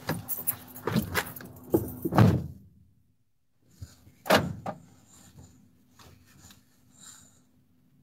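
Knocks and clatter in a Fiat Ducato van's cab, then a single loud sharp thump about four and a half seconds in and a few faint clicks, over a faint steady hum.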